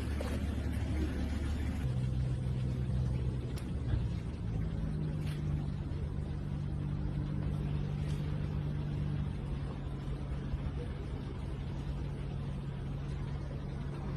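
A motor vehicle's engine running steadily, a low hum that steps up in pitch a couple of times in the first few seconds.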